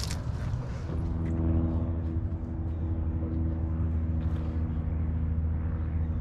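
An engine running steadily with a low hum that comes in about a second in, over a low rumble.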